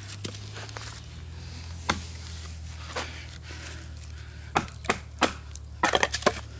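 An all-metal hatchet chopping and splitting a small piece of firewood: a few sharp knocks spaced about a second apart, then a quick run of hits near the end as the piece comes apart.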